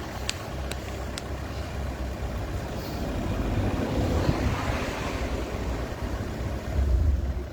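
A motor vehicle passing, its noise swelling and then fading around the middle, over a steady low rumble.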